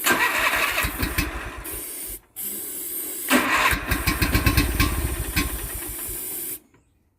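Kohler Magnum 18 twin-cylinder engine on a Craftsman riding mower cranking on its electric starter in two tries: about two seconds, a brief pause, then about four seconds before it stops. It is being started on starting fluid with only one spark plug hooked up, so it does not catch and run.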